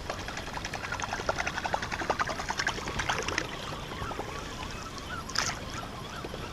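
Water lapping and trickling against the hull of a fishing boat, with a dense patter of small splashy clicks in the first half and a brief hiss about five seconds in.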